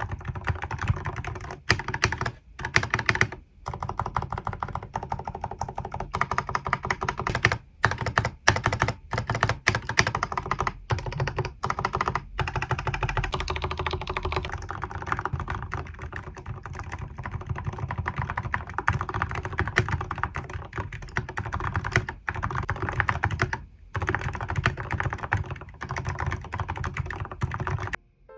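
Fast, continuous typing on a Keychron K10 mechanical keyboard fitted with silent red switches: a dense stream of keystrokes with short pauses now and then.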